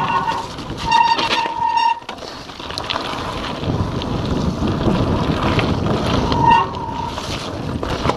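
Giant Anthem 2 27.5 cross-country mountain bike descending fast over a wet, rough trail: steady tyre rumble and bike rattle with wind buffeting the microphone. A brief high whine rings out about a second in and again near the end.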